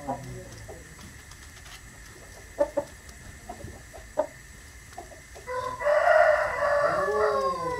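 A rooster crowing once, starting a little past the middle and lasting over two seconds, its pitch bending down and up near the end. Before it, a few faint clicks and knocks.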